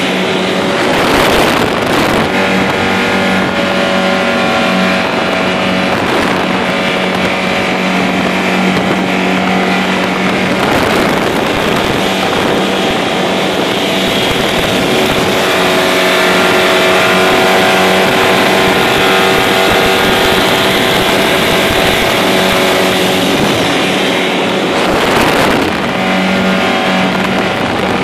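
Motorboat engine running steadily at speed with the rush of water along the hull. A few brief louder whooshes break through, one about a second in and one near the end.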